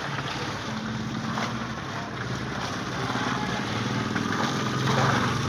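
A small engine or motor running steadily with a low hum, getting a little louder in the second half.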